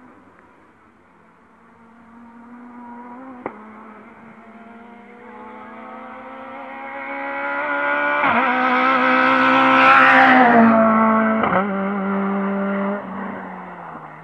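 Rally car engine at high revs, approaching and growing louder, passing close about ten seconds in and fading as it moves away. Three short sharp cracks along the way.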